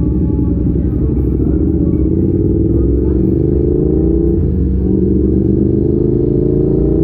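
Yamaha YZF R7's parallel-twin engine through an Arrow exhaust, accelerating under load: its pitch climbs steadily, drops briefly at an upshift about four and a half seconds in, then climbs again.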